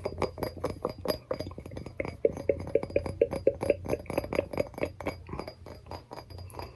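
Rapid tapping on a small tea maker: a quick, uneven run of sharp taps, several a second, each with a short ringing note, as in ASMR trinket tapping.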